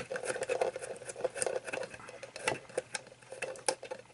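Irregular small clicks and scrapes of a screw being undone by hand on the battery-box cover of a vintage moulded multimeter case.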